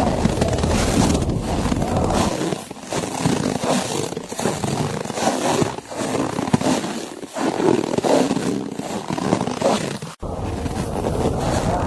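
Footsteps crunching through snow, roughly one step every second or so, over a wind rumble. The wind rumble drops away about two seconds in and comes back after a sudden break near the end.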